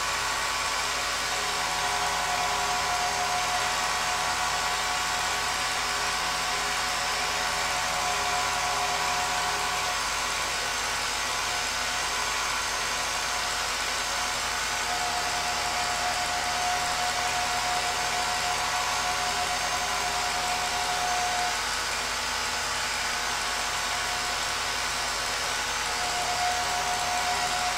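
Home-movie film projector running: a steady motor whir with a thin whine that fades in and out.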